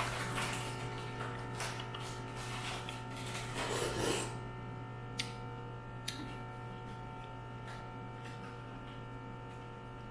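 Quiet sounds of eating mud crab: rustling and rubbing of crab shell and meat being handled and chewed, with two small sharp clicks in the second half. A steady background hum runs under it.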